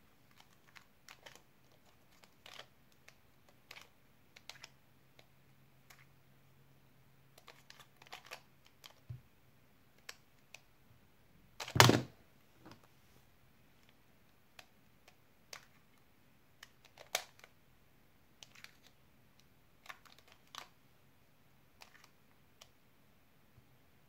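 Scattered light plastic clicks and taps as a 2x2x1 puzzle cube is turned and handled and fingers touch the tablet timer. About halfway through comes one loud thump.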